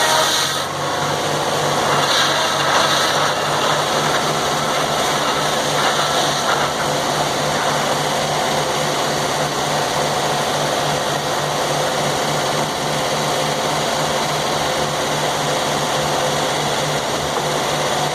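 Sawmill's engine running steadily under power, with an even, fast pulsing beat.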